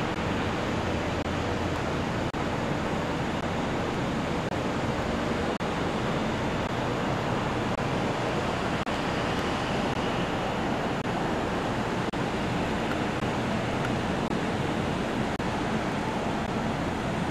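Steady city ambience at night: an even, unbroken wash of distant traffic noise heard from high above the streets.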